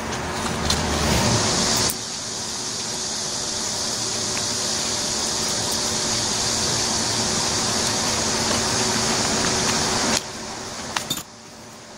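Steady whirring hum of a running fan, with a few light clicks from small carburetor parts and a screwdriver being handled. The whir drops away abruptly near the end.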